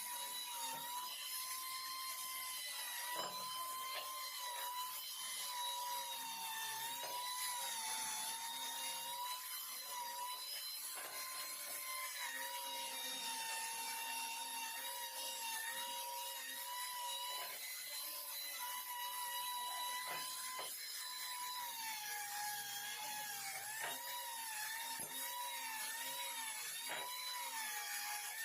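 Small power tool motor running with a steady whine that dips in pitch now and then as it is loaded, with scattered clicks and scraping from the work.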